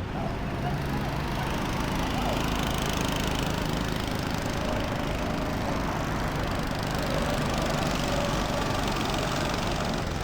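Go-kart engines running on a track: a steady small-engine drone whose pitch wavers slightly up and down as the karts go around.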